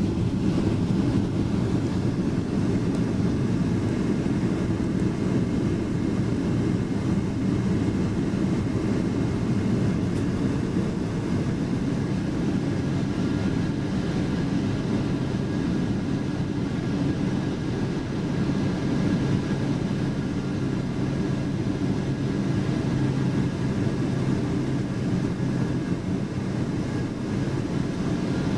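Steady drone of a Boeing 777-200 airliner heard from inside the cabin, deep and unchanging, with a faint high hum above it.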